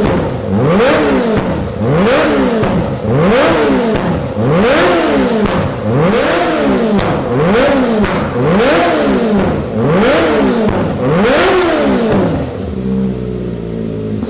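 Kawasaki Ninja ZX-25R's 250 cc inline-four engine with a Yoshimura exhaust, revved again and again while standing, about one rev every second and a half, then dropping back to a steady idle near the end.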